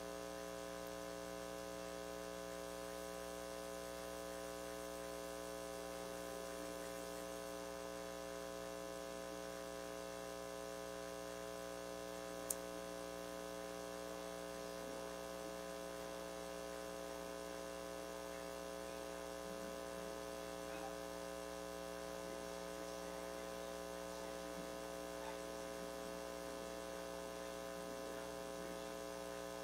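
Steady electrical mains hum with many overtones, unchanging throughout, and one short sharp click about twelve seconds in.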